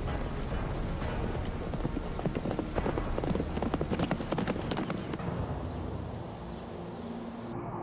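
Horses galloping: a fast, dense clatter of hoofbeats that thins out and fades about five seconds in, leaving a low steady tone.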